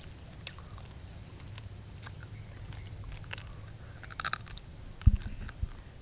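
Crunching and chewing of skewered roasted scorpions being bitten off, with scattered crisp cracks and a quick cluster of crunches about four seconds in. A loud dull thump comes about a second later.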